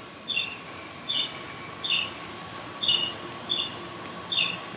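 Insects chirping: a steady high-pitched chorus with a short double chirp repeated evenly, a little more than once a second.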